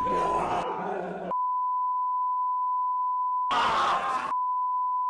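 A steady, unbroken beep tone on a single pitch, like a video test tone, sounding under a camcorder 'Tape Error' screen. Over it, a rough, noisy sound cuts off after about a second, and a short burst of noise comes and goes a little past halfway.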